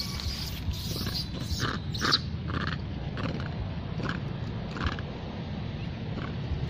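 A macaque giving short, rough grunts, about half a dozen spread over a few seconds, over a low steady background rumble.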